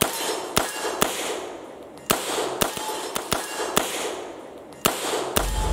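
MKE AP5M 9mm (an MP5K clone) fired shot by shot, about ten gunshots at uneven intervals of half a second to a second, each with a short echoing tail. Music starts near the end.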